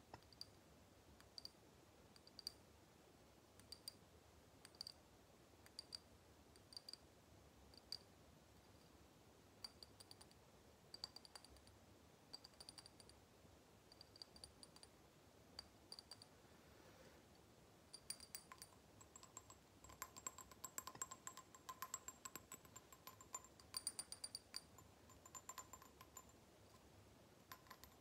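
A small glass jar of blue liquid with a metal screw lid, tapped with fingernails and a thin metal stick. Separate sharp taps, each with a short high ring, come about one or two a second. From about two-thirds of the way through they turn into faster, denser tapping with a clearer ringing tone.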